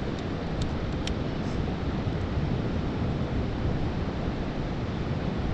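Steady wind noise on the microphone mixed with the wash of surf, with a few brief faint high ticks in the first second or so.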